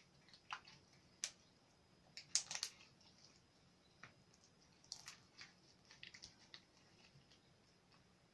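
Homemade glue-and-borax slime being squeezed and stretched by hand, giving faint, sticky clicks and pops, loudest a little over two seconds in and again around five seconds in.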